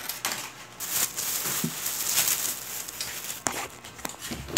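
Aluminium foil and a plastic bag crinkling and rustling in handling, with a sharp bump near the end.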